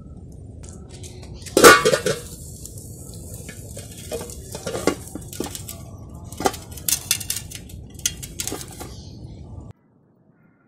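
A large metal vessel clanks and rings as a clay pot of burning coconut husks and shells is set into it, loudest about one and a half seconds in. A run of lighter clinks and knocks follows as the burning shells are settled, until the sound cuts off suddenly near the end.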